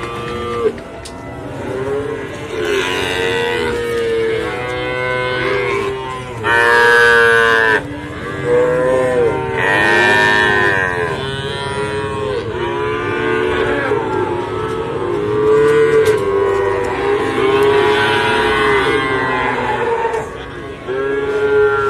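Many Pegon calves bawling over one another, in overlapping calls about a second long, one after another without a break.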